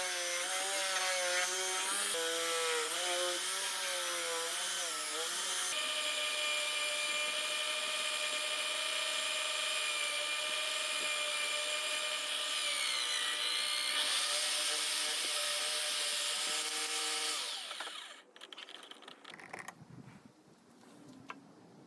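Electric drill driving a homemade wood lathe, its motor whine dipping and wavering in pitch under load as the spinning wood is worked, then running steadily. It is switched off about 18 seconds in.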